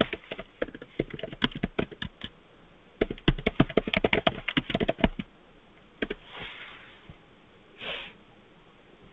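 Typing on a computer keyboard: two quick runs of keystrokes, then a few single key clicks and two short hisses near the end.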